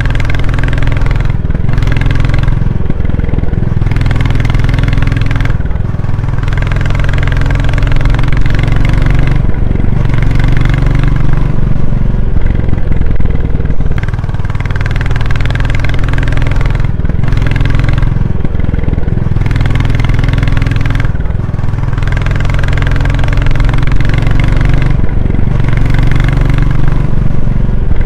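Royal Enfield Classic 350 single-cylinder motorcycle engine running with its exhaust thump, the engine note shifting up and settling back every few seconds.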